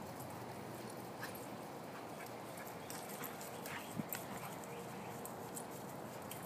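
Two coonhounds wrestling and chasing on grass: faint scuffling and soft thumps of paws over a steady outdoor hiss.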